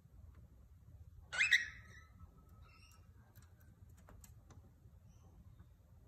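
A parrot gives a short loud call a little over a second in that trails off into a thin held whistle, followed by a few soft chirps and light clicks.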